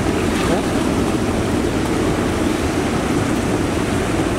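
Steady rush of wind and choppy water, with wind buffeting the microphone into a low rumble.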